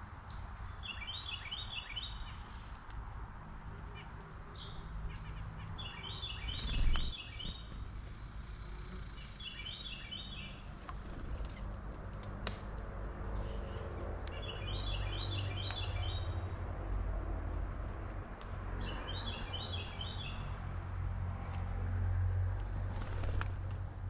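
A songbird repeats a short, quick phrase of rapid notes about five times, roughly every four to five seconds, over a steady low rumble. A loud thump comes about seven seconds in.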